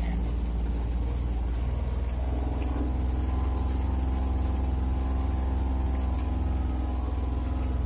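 Utility vehicle engine running steadily while driving over a wet field, heard from inside the cab; the engine note shifts up slightly about two seconds in. A few faint ticks sound over it.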